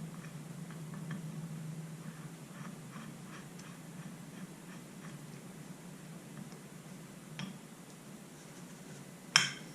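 Faint clicks and ticks of small metal fork parts being handled and a bolt threaded in by hand, with a sharper click about nine and a half seconds in, over a low steady hum.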